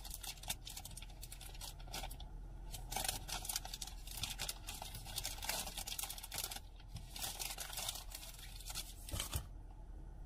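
Chocolate bar wrapper being torn open and crinkled by hand: a run of crackling rustles with short pauses, dying down near the end.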